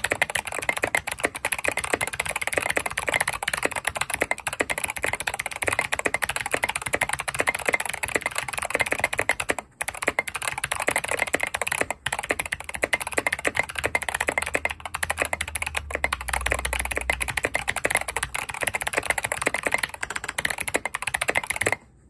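Fast, continuous typing on an NK65 Entry Edition mechanical keyboard fitted with Zeal Clickiez switches, tape-modded and capped with Leopold OEM-profile keycaps: a dense run of key clicks at about 135 words per minute, with two brief breaks about ten and twelve seconds in.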